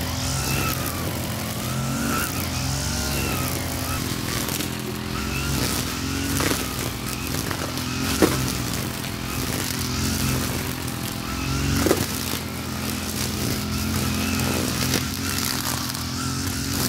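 Backpack brush cutter's small engine running at working speed while trimming grass, its pitch rising and falling as the cut loads and frees it. A few sharp knocks break in, the loudest about halfway through and again a few seconds later.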